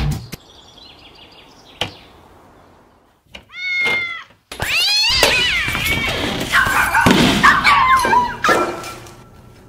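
A cat gives one meow about four seconds in. From about five seconds in, several cats yowl and meow over one another for about four seconds amid a scramble of thuds.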